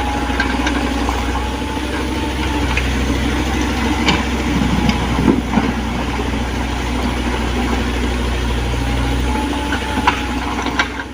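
Mini excavator's diesel engine running steadily, with a few sharp metallic knocks about four, five and ten seconds in.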